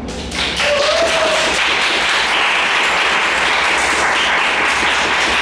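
Audience applauding. The applause starts about half a second in and keeps on steadily, with a brief shout about a second in.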